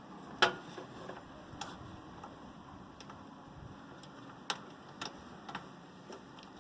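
A few sharp clicks and small taps, the loudest about half a second in, from a cable connector being handled and pushed onto a computer motherboard's header pins.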